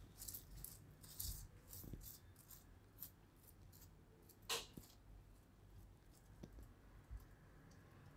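Near silence, with faint light clicks and rustles of fingers spreading butter over a cooked kulcha on a plate; one slightly louder click about four and a half seconds in.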